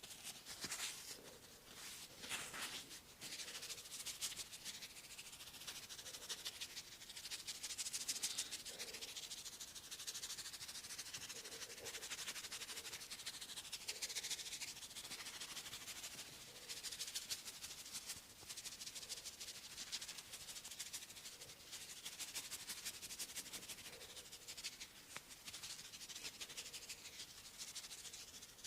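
Hands rubbing and scratching through hair and over the scalp in a head massage, heard close up as a continuous crisp rustle that swells and eases.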